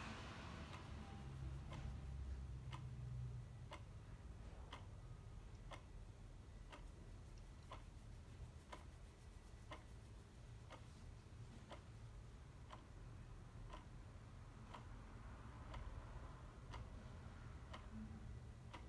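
Clock ticking faintly and evenly, about one tick a second, over a low steady background rumble.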